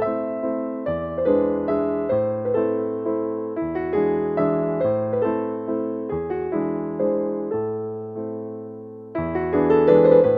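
Background music: soft piano playing a gentle, slow tune with a bass line, each note struck and fading.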